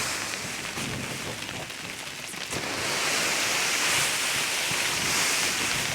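Sleet hissing steadily as it falls on surfaces during an ice storm. About two and a half seconds in, a louder rushing noise joins it.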